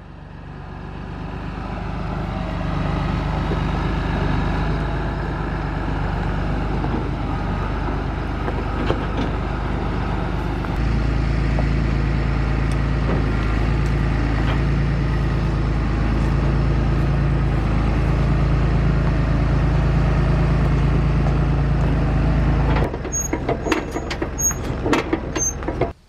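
A John Deere 8110 tractor's diesel engine runs steadily under load while backing up a pair of gravity wagons, its note stepping louder and deeper about eleven seconds in. The engine sound drops away near the end, leaving a few clicks and short high beeps.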